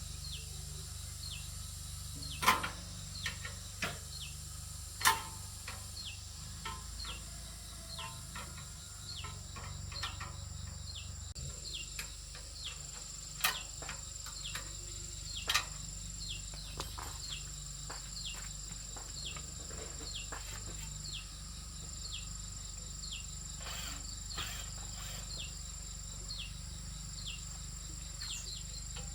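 Insect ambience: a steady high whine, with a short falling chirp repeated over and over at an even pace. A few sharp knocks stand out, the loudest in the first few seconds.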